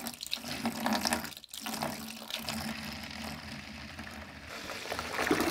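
Water pouring in a steady stream into a plastic bucket of soapy water, splashing as it fills, with a brief break about a second and a half in.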